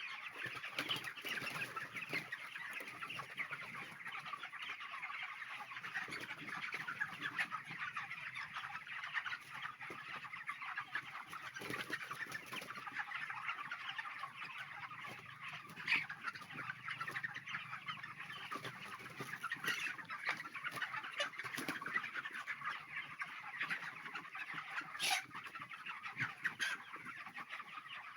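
A large flock of four-week-old broiler chickens clucking and chirping together in a dense, steady chatter, with scattered sharper calls standing out.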